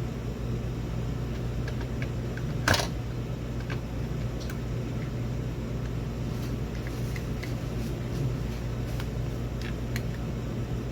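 Steady low hum with scattered small clicks and one louder crackle about three seconds in: plastic camera parts and packaging being handled during unboxing.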